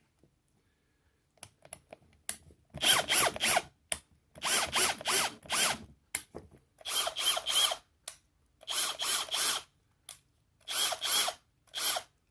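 Bosch 18V brushless hammer drill/driver run free in five short trigger pulls of about a second each, the motor speeding up and slowing within each pull, after a few light clicks.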